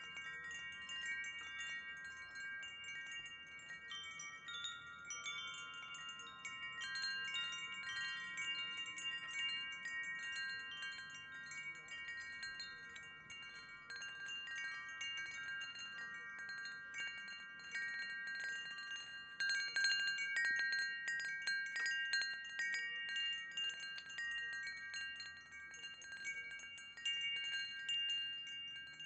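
Wind chimes ringing continuously, several pitched tones overlapping and sustaining. Light strikes come often and grow thicker and a little louder about two-thirds of the way through.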